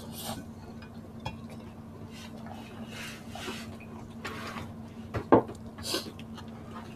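Hand-eating sounds: fingers picking rice and meat off plates and a banana leaf, with chewing, soft rustles and a few light clinks against the plates, the sharpest about five seconds in. A faint steady low hum sits underneath.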